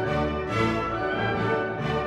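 Orchestral background music with strings and brass, in steady sustained chords.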